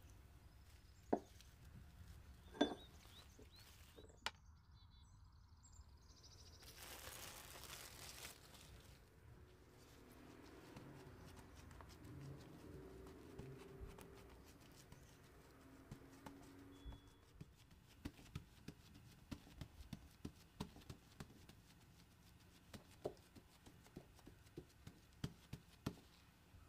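Faint food-handling sounds: gloved fingers pressing and dimpling soft dough out across a metal baking pan, with a string of light taps in the second half. A few sharper clicks and a short rustle come earlier.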